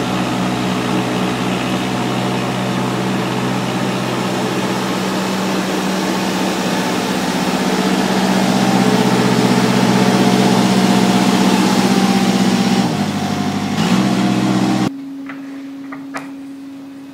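Scania R440 tractor unit's straight-six diesel engine running steadily, a little louder for a few seconds in the middle. It cuts off suddenly about fifteen seconds in, leaving a fainter steady hum.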